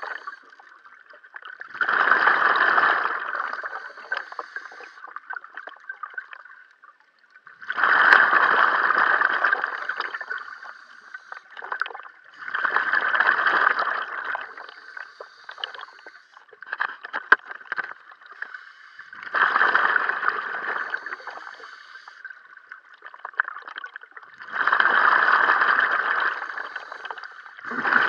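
Scuba diver breathing underwater through a regulator: bursts of exhaled bubbles about every five to six seconds, with quieter inhalations between.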